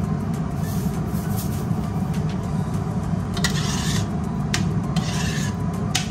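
A spoon stirring tomato sauce in a stainless steel pot, with two short scraping bursts about three and a half and five seconds in, over a steady low hum.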